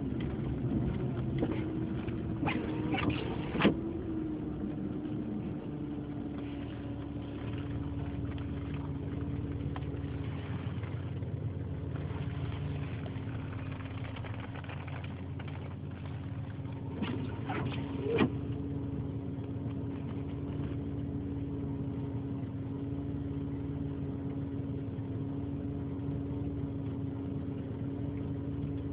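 Four-wheel-drive vehicle's engine and road noise heard from inside the cabin while driving, a steady hum whose pitch eases slightly over the first few seconds and then holds. Short clusters of sharp clicks come twice, about three seconds in and again around seventeen seconds in.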